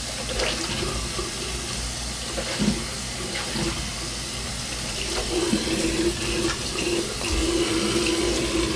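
Bathroom sink tap running steadily while things are rinsed, with a few light knocks of items being handled. A steady tone rides on the sound of the flowing water and grows stronger in the second half.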